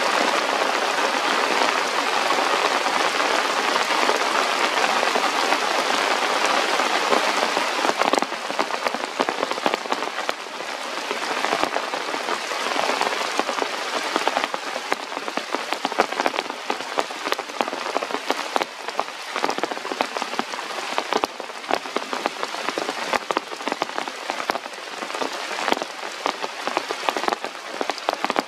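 Steady rain falling on forest leaves and rock, a dense even hiss at first that eases about eight seconds in, after which separate drops tick through it.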